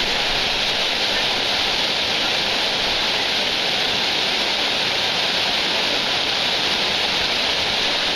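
Waterfall pouring: a steady, unbroken rush of water.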